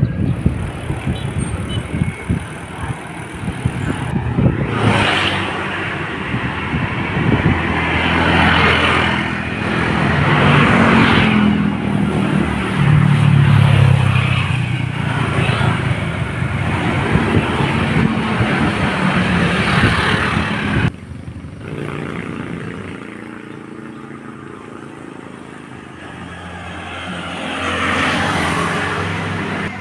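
Outdoor road noise: motor vehicles running and passing, mixed with a rushing wind-like noise. An engine note rises and falls around the middle. The sound drops off suddenly about two-thirds of the way through, then builds again near the end.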